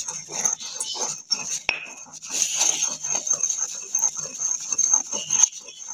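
Pestle grinding white powder in a small mortar, with quick irregular scraping and knocking strokes under a steady high whine.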